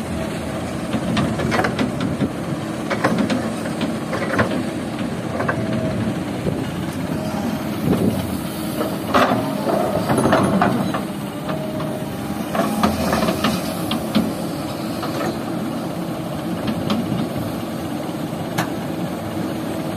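Kobelco SK200 hydraulic excavator's diesel engine running steadily as it digs sand and loads it into a dump truck, with short knocks throughout.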